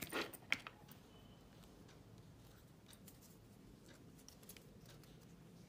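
Small handling sounds of paper and a glue stick: a short rustle and a sharp click about half a second in, then only faint scattered ticks and rustles.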